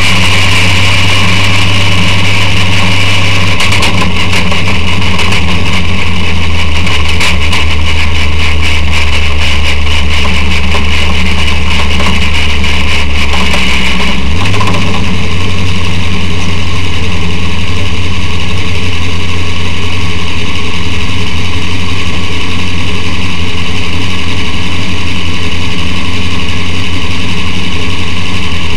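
Hummer rally-raid race truck's engine running under load, loud inside the cockpit while driving a dirt track. About halfway through the low engine note steps up in pitch, and there are knocks and rattles in the first half.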